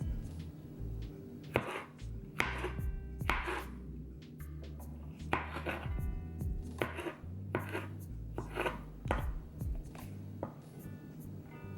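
Knife slicing vegetables on a cutting board: a dozen or so sharp, unevenly spaced strokes.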